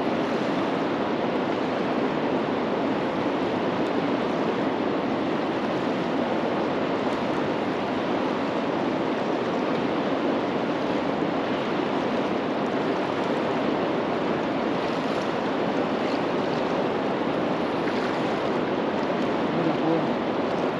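Steady rush of moving river water, an even hiss with no breaks.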